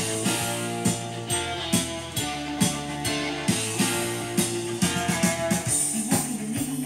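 Music with guitar and drums playing from a vinyl LP on a Technics SL-B3 belt-drive turntable, with a steady beat about twice a second.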